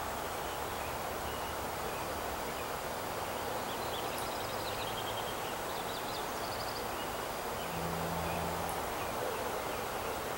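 Outdoor mountain-forest ambience: a steady background hiss with small birds chirping in several short, rapid trills in the middle. A brief low hum comes in about eight seconds in.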